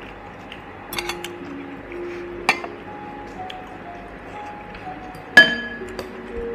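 Tableware clinking: light taps about one and two and a half seconds in, then a loud ringing clink of a metal spoon against a glass bowl a little after five seconds. Soft background music with held notes plays underneath.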